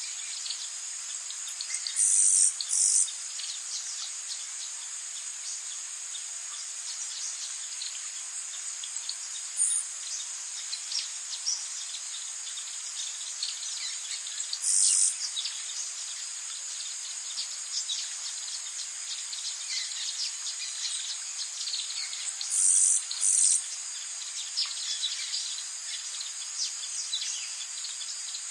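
Tropical rainforest ambience: a steady, high-pitched insect chorus with scattered short bird calls. Loud, short, high buzzes break through about two seconds in (two close together), once around the middle, and as another pair near the end.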